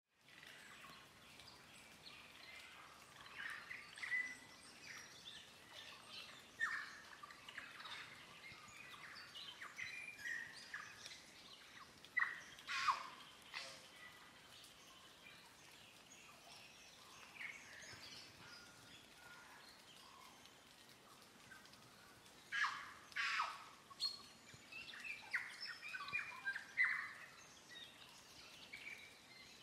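Birds chirping and calling in short scattered bursts over a faint steady background hiss, with the loudest calls a little under halfway through and again about three-quarters through.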